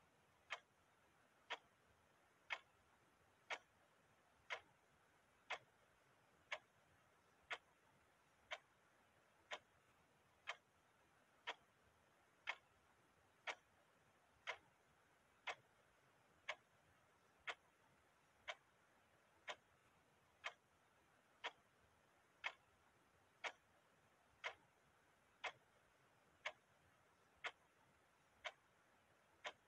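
Clock ticking steadily, about one tick a second, over a faint hiss.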